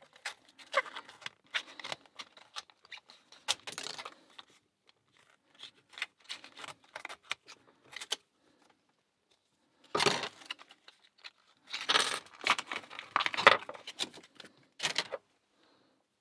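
Retail packaging of a new Master Lock 120 padlock being torn and pried open, with crinkling, clicks, and the lock and its keys rattling. The handling comes in irregular spells, the loudest about two-thirds of the way in.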